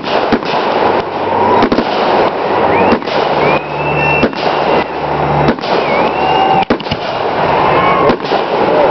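Aerial fireworks going off: a dense run of bangs and crackling, with several whistling shells gliding up and down in pitch.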